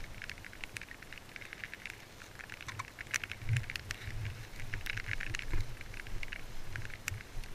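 Dense, irregular crackling and pattering clicks over low dull thumps, busier and louder from about three seconds in.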